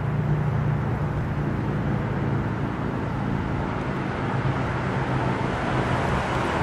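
1969 Ford Thunderbird with its 429 V8 driving along the road toward the microphone, engine running steadily with tyre and road noise.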